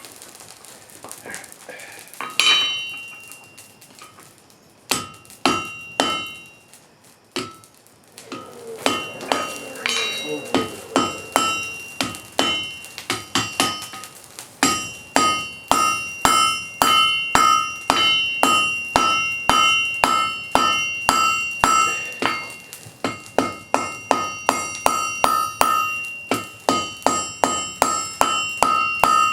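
Blacksmith's hammer striking hot wrought iron on an anvil, drawing out the bar, each blow followed by a ringing tone. A few scattered blows at first, then from about halfway a steady run of roughly two to three blows a second.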